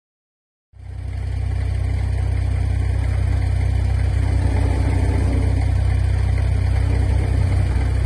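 Engine of a snow-buried 4x4 truck idling steadily, a deep low hum that fades in a little under a second in.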